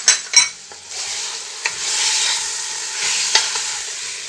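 Veal, onion and spices sizzling in hot oil in a pot as they are stirred and turned over, with two sharp clicks near the start and a couple of lighter knocks later.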